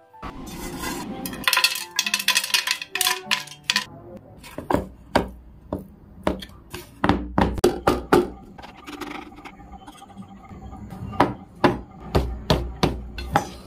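Steel spoon scraping and knocking against metal cookware as thick mango cake mixture is stirred and pressed into an aluminium tin: many sharp, irregular clinks and knocks.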